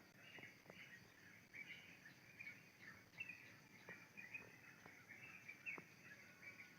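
Faint ambience of small birds chirping over and over, with a few faint clicks.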